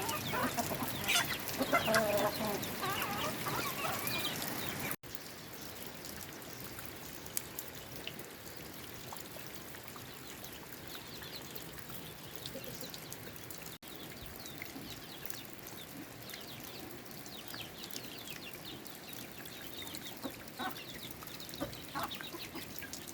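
Chickens clucking, loudest in the first five seconds, then fainter and scattered over a steady hiss of rain.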